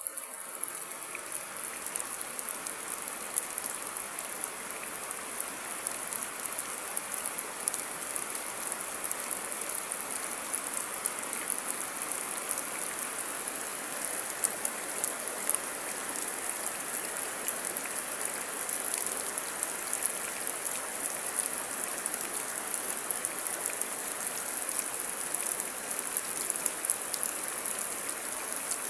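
Steady rain falling: a constant bright hiss with many tiny drop ticks, unchanging throughout.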